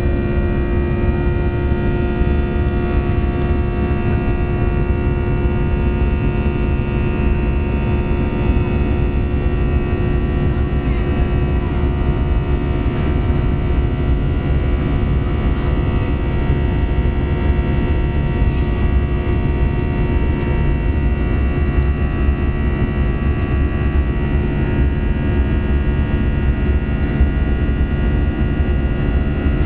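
Steady cabin drone of an Airbus A320 in flight: engine and airflow noise heard from a window seat, with several steady tones over a deep rumble.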